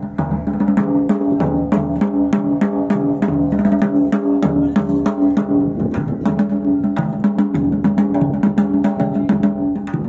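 Traditional Himachali temple music: drums beaten in a quick, steady rhythm under loud, held wind-instrument notes that shift pitch now and then.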